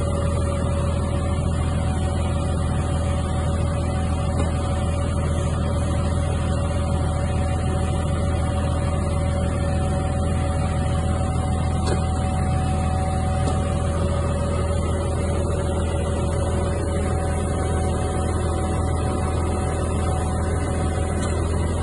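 Tractor engine running steadily with a Spapperi cabbage harvester's conveyors working, a low drone with a steady whine over it. Part of the whine stops about two-thirds of the way through.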